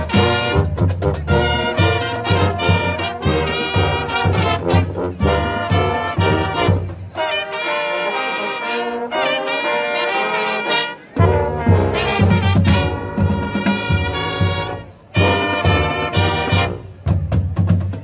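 Marching brass band playing: trumpets and sousaphones over snare and bass drums. The bass and drums drop out for a few seconds midway, leaving the higher horns, then the full band comes back in.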